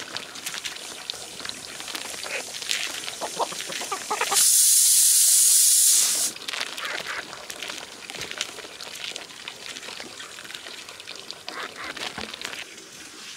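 Cooking over a hearth: scattered small clinks and taps of pots and utensils, broken by a loud steady hiss that starts suddenly about four seconds in and cuts off about two seconds later.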